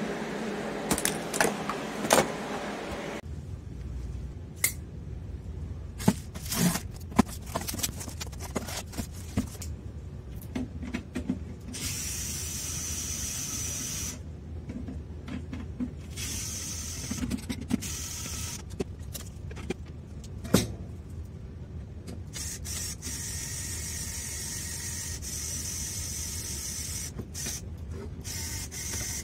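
SKIL 4V cordless screwdriver (about 230 rpm) running in several runs of a few seconds each, the longest near the end, as it tightens wing nuts on a plastic CCTV dome camera. Sharp clicks and knocks of parts being handled fall between the runs.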